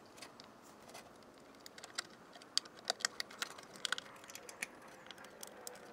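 Faint, irregular small clicks and light metal taps as the retaining pins are slid through the straps of a Cessna 150's metal battery box.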